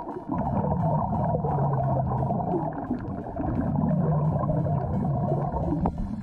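Muffled underwater sound recorded through a GoPro's waterproof housing: dense low rumbling and bubbling water noise, with a low hum that swells and fades several times.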